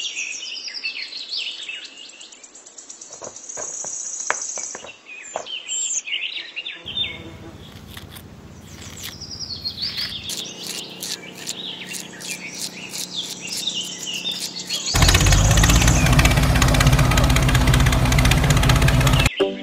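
Small birds chirping and tweeting. Partway through, a low steady hum joins them, and near the end a much louder steady rushing noise takes over.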